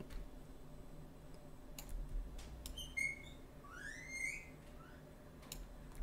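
A few sparse computer mouse clicks over a low steady hum, with a brief run of high chirps and a rising whistle about halfway through.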